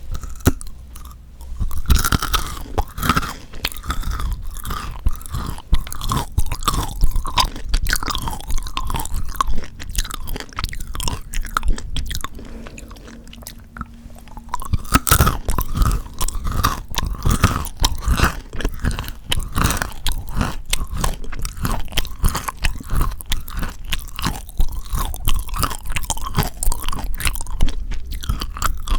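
Close-miked chewing and crunching of chocolate, a dense run of crisp crackles and moist mouth sounds. It eases off a little before the middle, then picks up again with a fresh crunchy bite.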